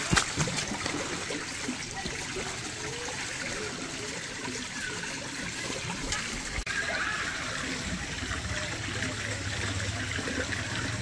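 Water running and trickling steadily, with a sharp knock just after the start and a low hum coming in about eight seconds in.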